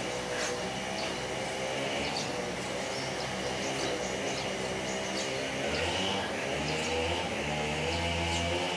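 A steady engine drone, its pitch wavering slightly and growing stronger after about six seconds, over a high steady buzz. Faint scattered ticks come from cats crunching dry kibble.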